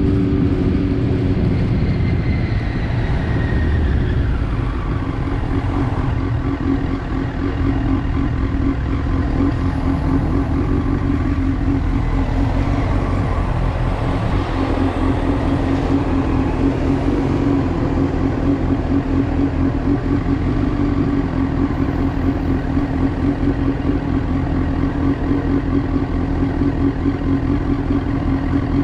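Honda Fireblade's inline-four engine dropping in pitch as the bike slows in traffic, then idling steadily at a standstill from about halfway through.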